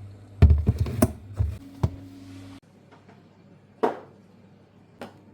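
A quick run of clicks and knocks, then two single knocks spaced about a second apart, over a low steady hum that cuts off about two and a half seconds in.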